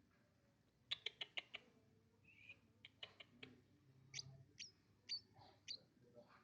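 Eurasian tree sparrow chirping: a quick run of about five short, sharp chirps about a second in, then scattered single chirps.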